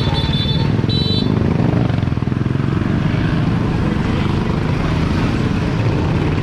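Tow truck's engine running, a loud steady low rumble. Two short high electronic beeps sound in the first second and a half.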